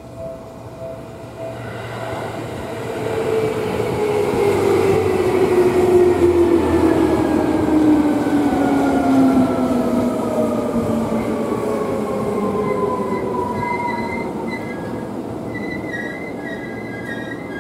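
Seibu 2000 series electric train, six cars, running past at a level crossing: a rumbling pass-by that swells to its loudest about six seconds in, with several whining tones that fall steadily in pitch. A level-crossing bell rings, heard more plainly near the end as the train clears.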